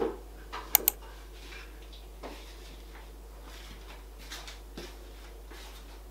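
A kitchen cabinet door shutting: a thump, then two sharp clicks in quick succession just under a second in. Faint scattered handling noises follow over a steady low hum.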